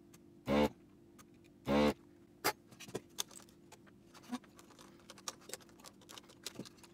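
The ZD985 desoldering station's vacuum pump runs in two short bursts, about half a second and nearly two seconds in, sucking molten solder out of a through-hole joint through the gun's nozzle. After that come scattered light clicks and taps as the board and components are handled.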